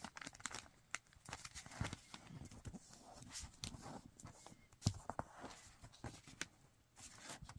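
Sheet of origami paper being handled, folded flat and creased, giving soft rustles and scattered small crinkles and taps, the sharpest a little under five seconds in.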